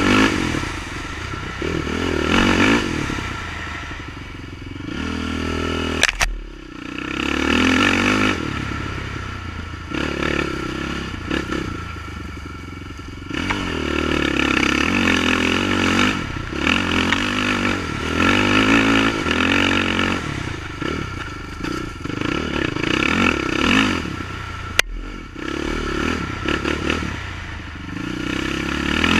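Honda TRX450R quad's single-cylinder four-stroke engine under way on a dirt trail, the revs climbing and dropping off again and again as it is ridden. There are two sharp clicks, about six seconds in and near the end.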